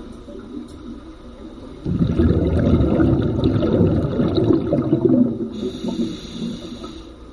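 Muffled churning of water in a swimming pool, heard with the microphone under water: a low, noisy swell starts suddenly about two seconds in and fades over the last two seconds.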